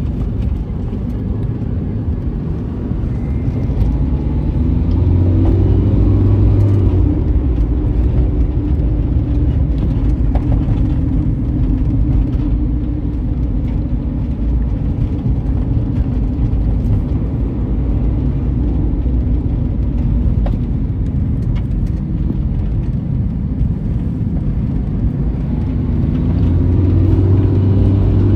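Car engine and road noise heard from inside the cabin while driving: a steady low rumble, with the engine revving up about four seconds in and again near the end.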